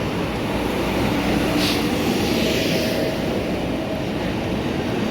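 Train running through a station hall: a steady rumble with faint steady tones, and a brief hiss of air about one and a half seconds in.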